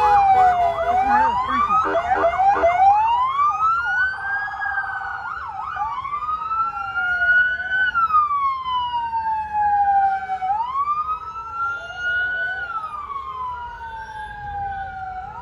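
Emergency vehicle sirens wailing, several overlapping at first with quick yelping sweeps, then settling into one slow wail that rises and falls every few seconds. There is a short blare about four seconds in, and the sirens grow fainter toward the end.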